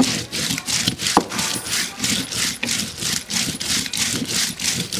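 Stone roller rolled back and forth on a flat stone grinding slab, grinding a spice masala: a rhythmic stone-on-stone scraping grind, about three strokes a second.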